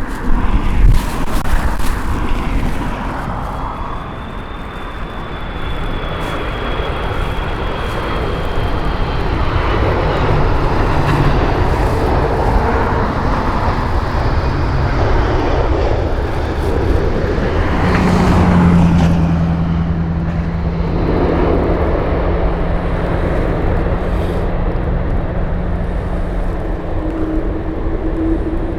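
Airbus A330 jet engines whining and rumbling as the airliner comes in to land, loudest a little past the middle, with wind buffeting the microphone near the start.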